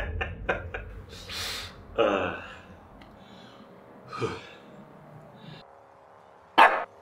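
A man's breathy laughter dying down into gasps, sighs and sniffs. A brief loud burst comes near the end.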